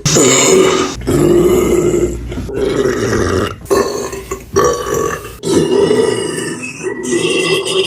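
A woman belching: several long belches in a row, each broken off by a short pause.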